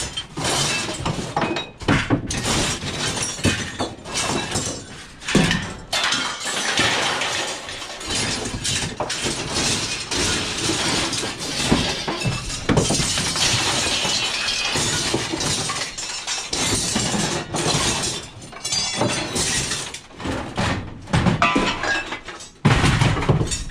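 Scrap metal being unloaded and thrown onto a pile: a dense, continual clattering and crashing of metal pieces hitting one another.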